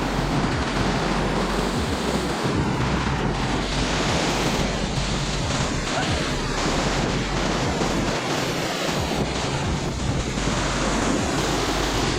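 Steady roar of a waterfall's rushing water.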